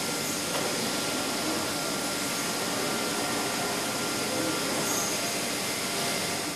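Steady machinery noise from a brewery's keg-handling line, an even hiss with a faint steady whine.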